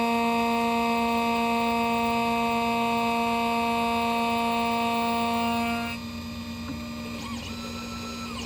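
Xhorse Condor Dolphin XP-005 automatic key cutting machine running a cut on a key blade: its spindle motor gives a loud, steady whine. About six seconds in the whine stops, leaving a quieter whirr with a few short chirps of the machine's motors moving.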